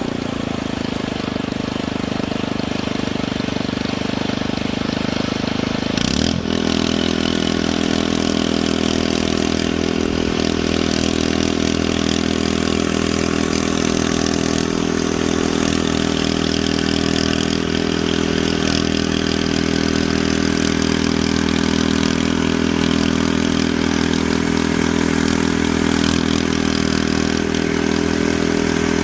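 Steady engine idle at an even pitch, with a brief break about six seconds in.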